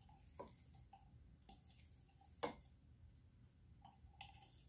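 Faint clicks and taps of a plastic food-processor bowl being handled while chopped zucchini is scraped out of it by hand, with one sharper tap about two and a half seconds in.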